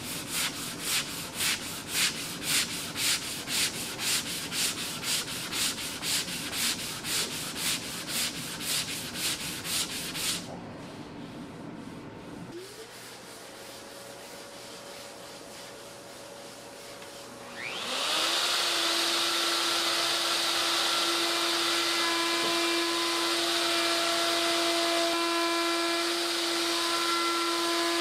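Hand sanding with a sanding block in quick, even back-and-forth strokes over body filler for about ten seconds. After a quieter stretch with a faint steady hum, a handheld plunge router spins up with a rising whine about eighteen seconds in and then runs steadily and loudly.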